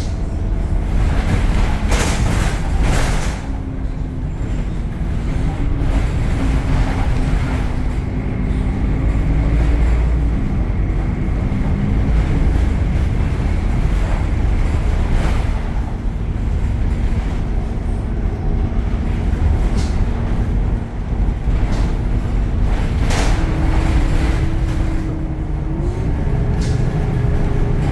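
Temsa Avenue LF city bus running, its DAF Euro 5 diesel engine and ZF gearbox giving a steady low rumble with a whine over it. The whine steps up in pitch twice near the end, and short knocks and rattles come now and then.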